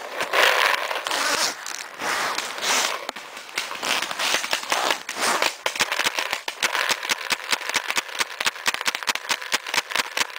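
Paintball marker firing, a fast, even string of sharp pops at about five a second that sets in about halfway through, after a stretch of more irregular noise.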